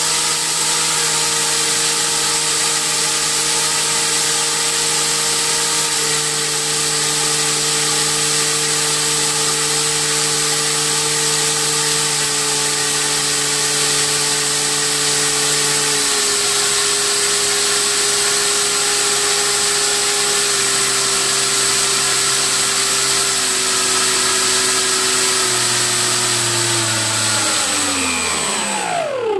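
A 3536 brushless outrunner motor spinning an 8x6 three-blade propeller runs at high throttle with a loud whine and propeller rush, along with a thin steady high-pitched whine. Its pitch drops in several steps as the throttle is stepped down. Near the end the throttle is closed and the propeller winds down with a fast falling whine.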